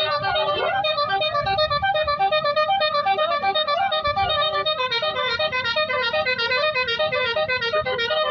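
Music: a fast melody of short stepped notes with a keyboard-like sound over a low pulsing beat.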